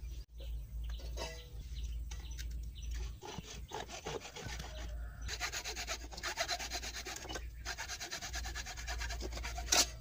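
Hacksaw sawing through a plastic water pipe in rapid back-and-forth strokes, steadiest in the second half. Near the end the cut-off piece drops onto concrete with a sharp knock.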